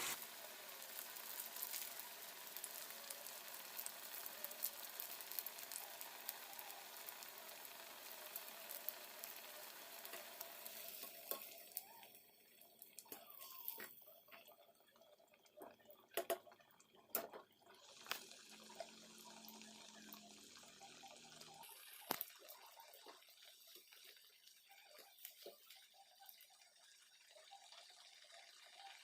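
Breadcrumb-coated vegetable cutlets frying in hot oil: a dense sizzling crackle for roughly the first ten seconds, then much fainter, with a few sharp clicks of a utensil against the pan.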